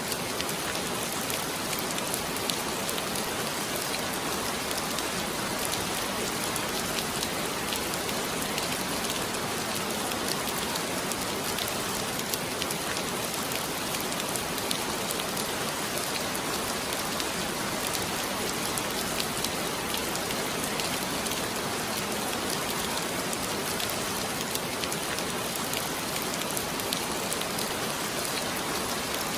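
Heavy rain falling steadily, a dense even hiss with scattered individual drop ticks.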